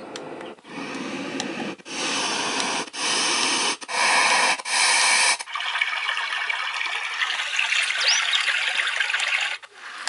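Avantek white noise machine playing loud hissing noise that changes character several times with short breaks between, as its sound settings switch. From about halfway it settles into a higher, water-like hiss with less low end.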